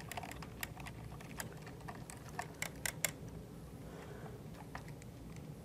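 Scattered light clicks of a ball-end hex driver turning a small screw in the metal front plate of a cable tie dispenser, most of them in the first three seconds.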